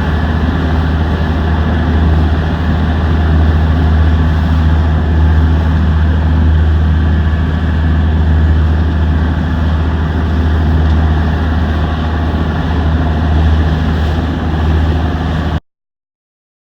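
Boat engine running steadily with a deep, even drone. It cuts off abruptly near the end.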